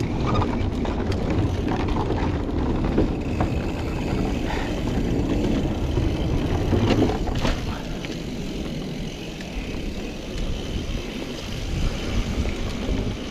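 Mountain bike riding down a dirt trail: wind rushing over the microphone, tyres rolling on dirt and scattered sharp rattles from the bike over bumps. The sound gets quieter after about seven and a half seconds.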